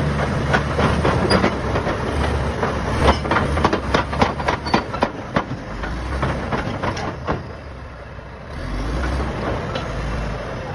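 Shantui SD16 crawler bulldozer working: its Weichai diesel engine rumbles under the rapid clatter of the steel tracks. The clatter eases and the sound drops about seven seconds in, then the engine note swells again near the end.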